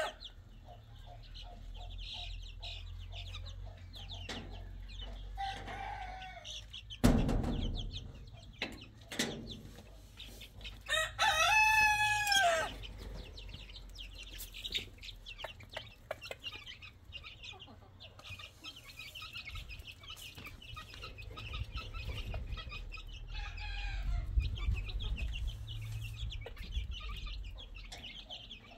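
Chicks peeping steadily in a busy high chorus while they forage with their hen. A rooster crows once, loud and clear, about eleven seconds in, with fainter crows a few seconds earlier and again near twenty-four seconds; a sharp thump sounds about seven seconds in.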